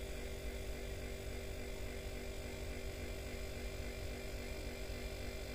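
Refrigerator compressor, salvaged from a scrap fridge, running with a steady hum as it pumps air through a hose into a homemade PVC pipe air cannon, pressurising it.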